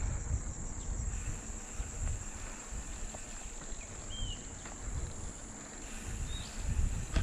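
Wind rumbling on the microphone of a rider cycling along, under a steady high-pitched insect buzz, with two brief chirps about four and six and a half seconds in.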